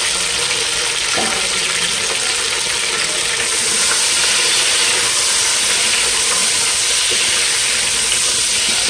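Potato chunks and sliced onions sizzling in hot oil in a pot as they are stirred; the steady sizzle grows louder about three and a half seconds in.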